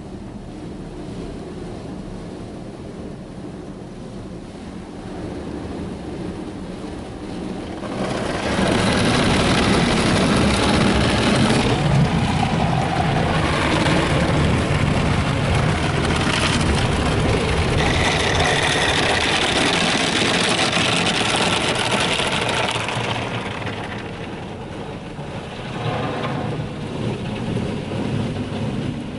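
Water jets of a PDQ ProTouch automatic car wash spraying the truck, heard from inside the cab. A softer hiss turns into a loud rush of spray about eight seconds in and eases off some fifteen seconds later, with a shorter burst near the end.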